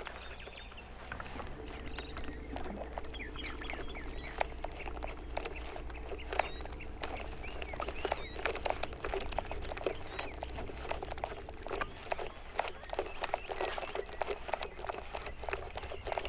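Birds chirping around the water, with many irregular clicks and ticks and a faint steady hum that fades out about three-quarters of the way through.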